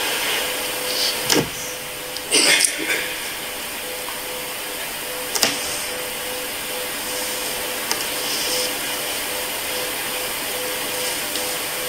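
Steady hiss of a pause in a talk recording, with a faint steady hum, broken by a few brief sounds: a thump about a second in, a short noisy burst around two and a half seconds, and a click near five and a half seconds.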